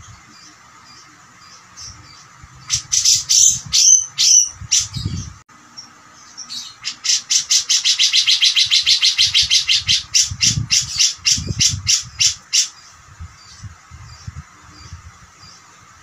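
Cucak jenggot (grey-cheeked bulbul) singing: a few loud, harsh gliding calls, then a long fast rattling run of about six notes a second that lasts some six seconds. A few soft low thumps come in under it.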